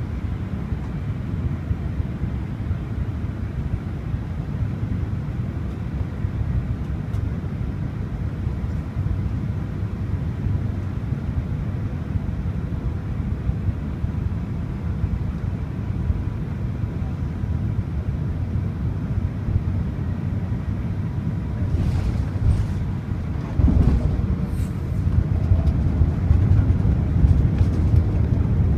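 Low, steady rumble of an Airbus A380's Rolls-Royce Trent 970 jet engines on landing approach, mixed with wind on the microphone; the rumble grows louder near the end.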